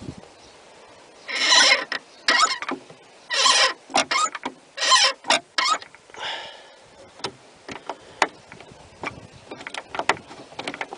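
Door handle and lock linkage of a 2002 VW Golf Mk4 rear door being worked about six times in quick succession, giving short rasping clacks, then a few lighter clicks. The lock does not release: it is deadlocked in its 'safe' state.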